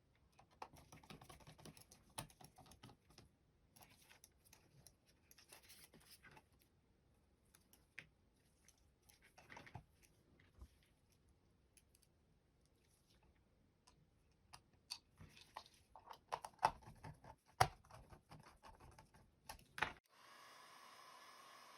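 Plastic parts of a Logitech M150 corded mouse being handled and fitted back together: rustling and tapping with scattered sharp clicks, the loudest clicks in the last few seconds. Near the end it cuts abruptly to a steady hiss with a faint hum.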